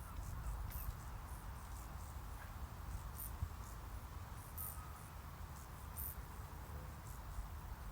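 Crickets chirping faintly in short, very high chirps scattered every second or so, over a steady low rumble.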